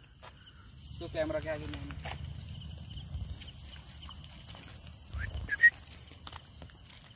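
A steady high-pitched chorus of insects, with a brief voice about a second in and a short sharp sound just past five seconds.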